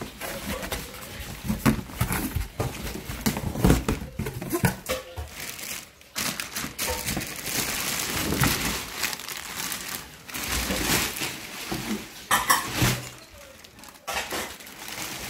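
Cardboard box being opened and handled by hand, with irregular rustling, scraping and knocks of cardboard flaps, and a plastic bag crinkling near the end.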